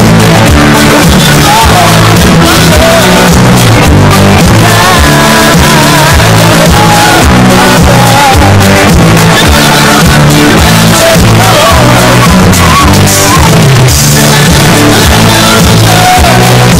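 Rock song, heavily bass-boosted and distorted, playing at full loudness, with a sung vocal line over a loud stepping bass line.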